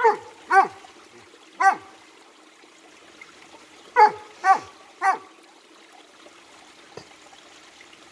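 Dog barking: six short barks, each dropping in pitch, in two bursts of three a few seconds apart, over the faint steady rush of a stream.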